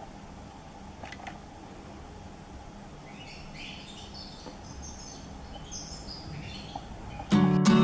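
Young European goldfinch giving soft, scattered chirps, short rising notes, over steady room noise. Near the end, loud acoustic guitar music cuts in.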